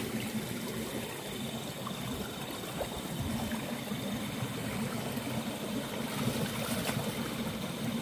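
Shallow stream water running and trickling steadily, with light sloshing as hands and a landing net move through it.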